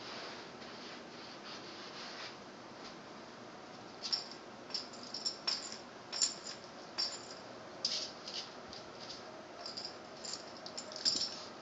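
A small dog's claws scratching and clicking on a tile floor as it paws at a cockroach: quick, irregular scrapes and taps that start about four seconds in and go on to the end.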